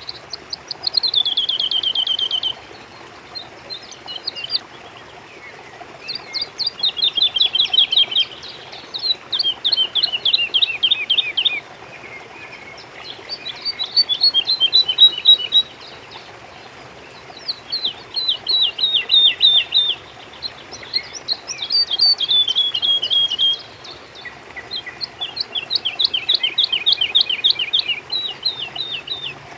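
A songbird singing repeated phrases, each a rapid run of sharp high notes lasting one to three seconds, with short pauses between them.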